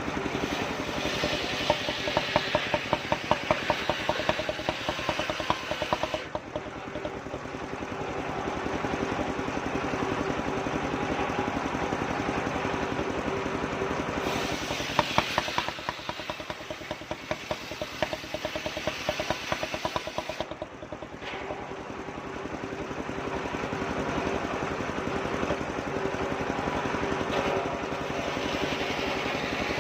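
Engine of a homemade circular-saw sawmill running steadily, its sound swelling and easing a few times.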